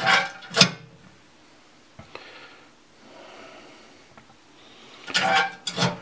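Small mechanical sounds from handling a Sentry safe's combination lock: a single sharp click about two seconds in, faint rubbing in the middle, and a few short knocks near the end.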